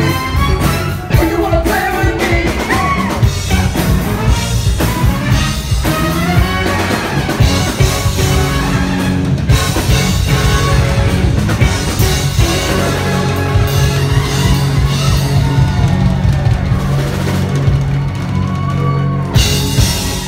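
Live band playing loudly on stage: drum kit and bass under a horn section, with a male singer's voice in the first few seconds.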